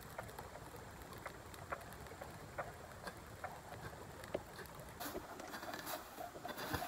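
Faint, irregular crackling and ticking from a small brush fire. From about five seconds in comes denser scraping of a hoe through dry grass and soil.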